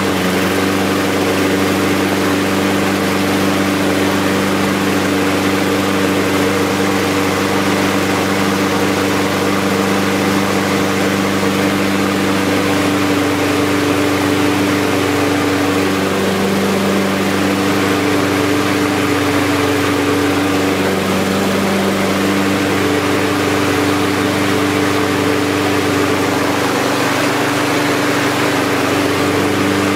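Brand-new Mountfield S481 PD lawnmower's ST170 166cc overhead-valve petrol engine running steadily, newly started from cold on the first pull of the recoil starter.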